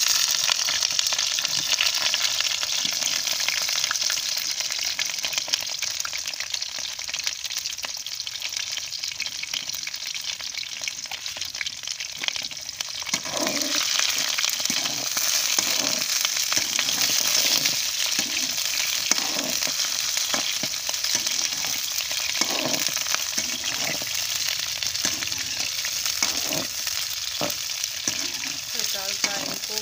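Cauliflower florets sizzling loudly in hot oil in a metal wok as they are browned, the sizzle jumping up as they go in. From about halfway, a metal slotted spatula scrapes and knocks against the pan as they are stirred.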